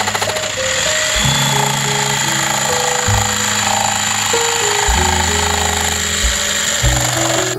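DeWalt jigsaw cutting through a white plastic lattice panel: a steady high motor whine with the rasp of the blade, under background music with a bass line.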